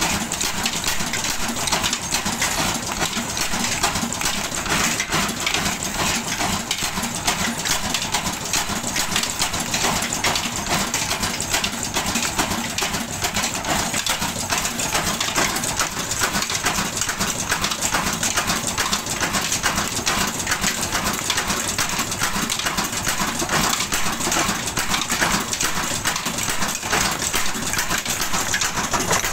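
Old Ruston Hornsby horizontal single-cylinder stationary diesel engine running steadily, its heavy flywheel turning, with a rapid, even metallic clatter.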